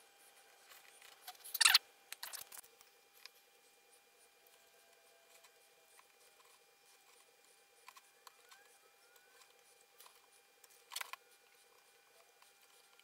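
Quiet room with a few short clatters and scrapes of things being handled. The loudest is about two seconds in, with a smaller cluster right after it and another clatter near the end.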